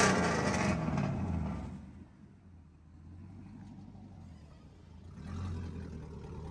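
A truck engine's rev dies away over the first two seconds, leaving a low, steady idle rumble that grows a little louder about five seconds in.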